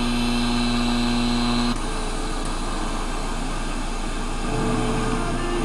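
1974 Zenith Circle-of-Sound clock radio tuned between AM stations: static hiss with a low steady buzz. The buzz cuts off sharply about two seconds in and comes back near the end.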